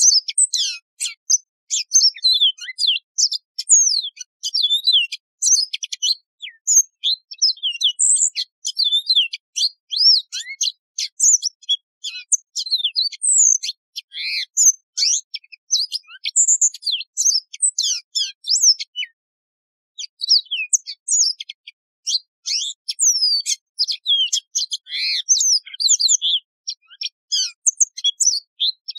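Yellow-fronted canary (Mozambique serin) singing a long, fast, varied song of high, sweet twittering notes and quick slurs, broken by a brief pause about two-thirds of the way through.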